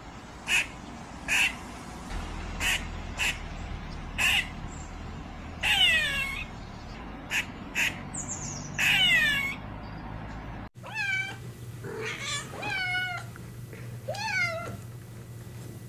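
A grey squirrel calls with short sharp chirps and two longer falling squeals. A sudden cut follows, then a domestic cat meows about four times in short rising-and-falling meows.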